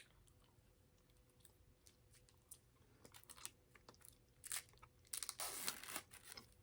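Close-miked mouth sounds of someone chewing a fruit roll-up: soft, sticky clicks and smacks. They grow busier and louder from about three seconds in, with the loudest patch a little past five seconds.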